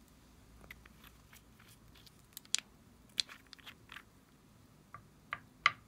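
Irregular sharp clicks and small cracks, about nine in all and the loudest near the end, as hands handle and squeeze small toy balls over a dish of slime.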